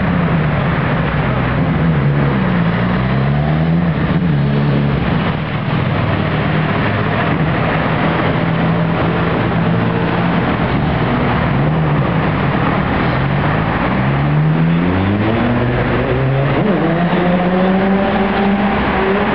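Busy city street traffic: cars, a bus and a motorcycle driving past close by over a steady rumble of traffic. Engine notes repeatedly fall and rise in pitch as vehicles slow and pull away, and near the end one engine climbs steadily as it accelerates.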